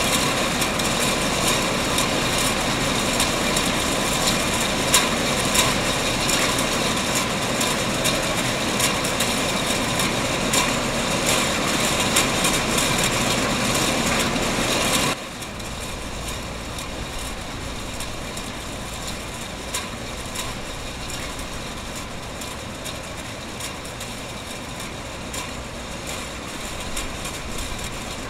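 Production-line machinery running, with frequent light clicks and clinks from tins on a conveyor. About halfway through it cuts abruptly to a quieter, steady machine hum.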